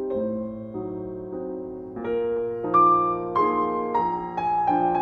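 Gentle piano music: sustained chords changing about every half second, with the melody stepping downward in the second half.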